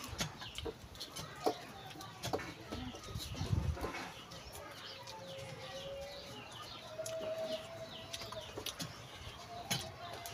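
Chickens clucking and small birds chirping in the background, with a couple of drawn-out calls in the middle, over chewing and the sharp clicks of a hand mixing rice on a metal plate.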